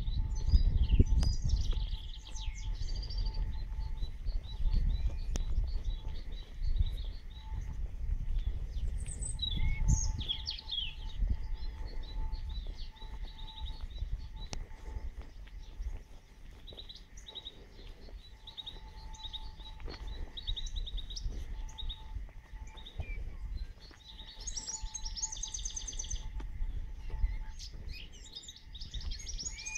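Birds singing and chirping in the trees, with short high trills and calls throughout. Under them a low rumbling noise, strongest in the first couple of seconds.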